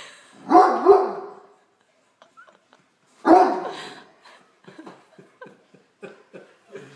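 Great Dane barking for food: two deep barks in quick succession about half a second in, another about three seconds in, then a string of quieter short sounds.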